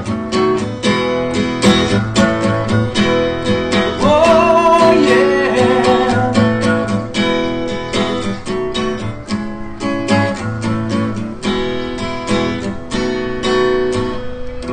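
Acoustic guitar strummed in a country song played live, with a brief sung vocal line about four seconds in.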